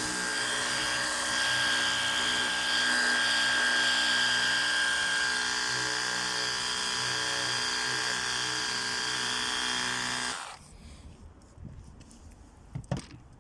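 Ryobi portable pressure washer's pump motor running with a steady whine and hiss, then cutting off abruptly about ten seconds in; a sharp click or two follow near the end.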